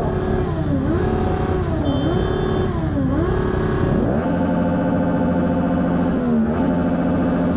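Motorcycle engine running under way. Its pitch dips and climbs back three times in the first few seconds, then holds steady, over a constant low rumble.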